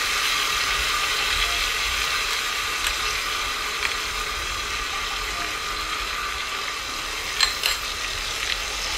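Oil sizzling steadily in a pressure cooker as crushed ginger is fried, with a few light clicks of utensils against the glass bowl and the pot.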